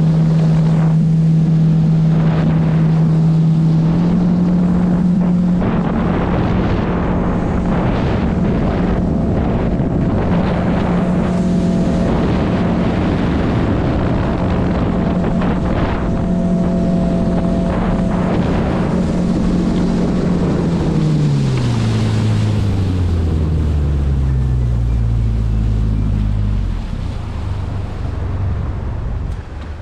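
Jet boat's outboard motor running steadily at speed, with wind on the microphone and water rushing along the hull. About two-thirds of the way through the engine is throttled back and its pitch falls as the boat comes off plane.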